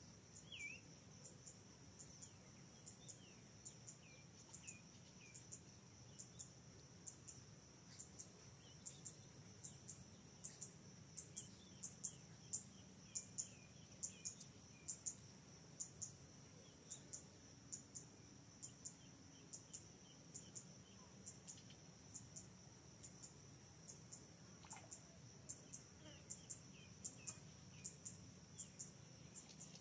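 Insects trilling steadily at a high pitch, with faster pulsing trills that come and go, and many sharp high clicks that are thickest about halfway through. Faint runs of short falling chirps sound now and then.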